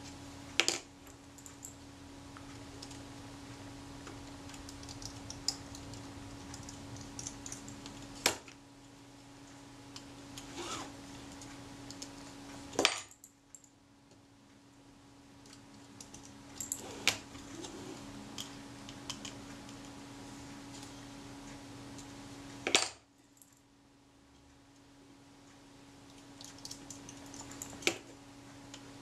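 Small metal clicks and taps of tiny screws, tweezers and a screwdriver against the metal chassis of a Rolleiflex Automat TLR as screws are fitted. Sharp clicks come every few seconds, with fainter ticks between them, over a steady low hum.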